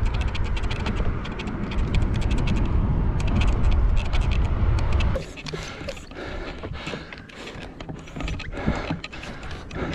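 Wind rumbling on a bicycle-mounted camera's microphone as the bike rolls along, with quick ticking over it. About five seconds in this gives way to a much quieter stretch of scattered small clicks and rustles.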